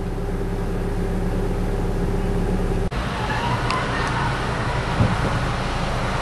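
Road traffic noise: a vehicle engine running steadily at idle, then after an abrupt cut about three seconds in, passing traffic with a few light clicks and a short thump.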